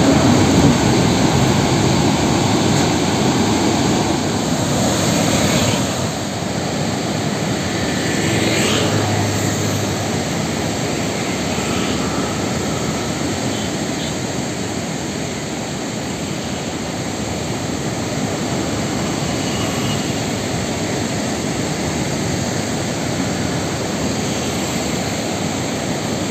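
Steady rush of floodwater pouring over a stepped dam spillway and weir, its surplus gates open.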